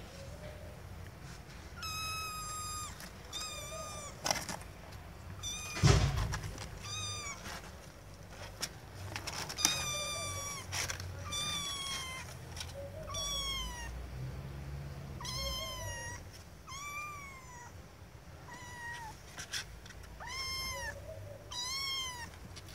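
A kitten meowing over and over: about a dozen short, high-pitched meows starting about two seconds in, some falling in pitch and some rising then falling. A few sharp knocks fall between them, the loudest a thump about six seconds in.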